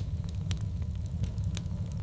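Wood fire crackling: burning logs give off scattered sharp pops and snaps over a steady low rumble of the flames.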